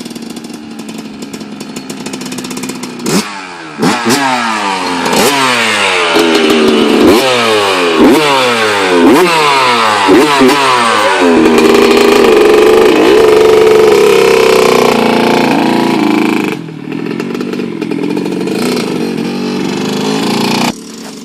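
Small dirt bike engine revving: its pitch climbs and falls back again and again for several seconds, then holds a steady higher speed before easing off, and drops away near the end.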